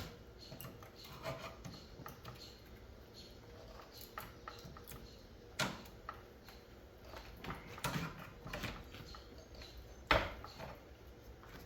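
Scattered light clicks and taps of pliers and hand tools working the metal parts of a mini split air conditioner, with two sharper knocks, one about halfway and one near the end.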